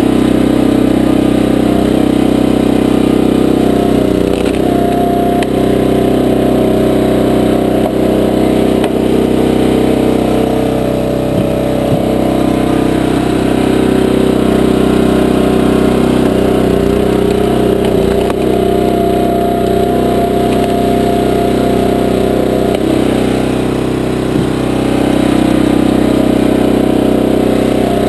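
Small gasoline engine of a 20-ton Powerhorse horizontal log splitter running steadily, its note shifting now and then, with a few sharp clicks.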